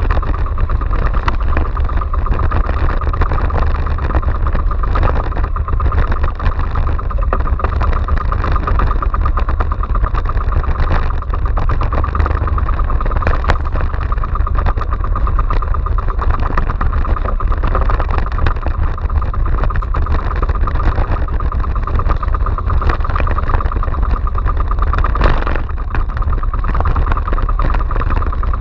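Small outrigger boat's engine running steadily under way, over the low rumble of strong wind on the microphone and waves washing past the hull.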